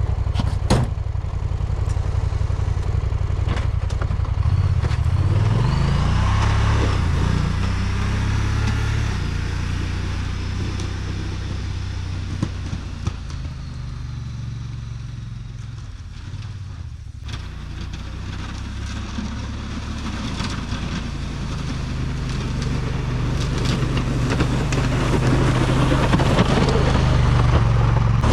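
Engine of a snow-plow vehicle running under load while plowing. It revs up about five seconds in, eases off in the middle, and builds again near the end.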